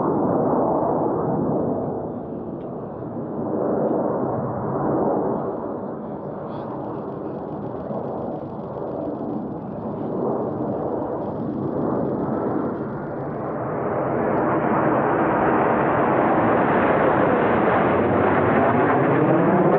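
Jet noise from Blue Angels F/A-18 Super Hornets, swelling and fading for the first dozen seconds. It then grows steadily louder from about two-thirds of the way in, with a sweeping, phasing whoosh as the jets close in.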